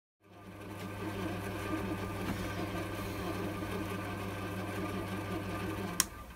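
Chinese C3 mini lathe running with its chuck spinning, a steady motor hum with whirring gears. About six seconds in there is a sharp click, and the hum stops as the lathe is switched off.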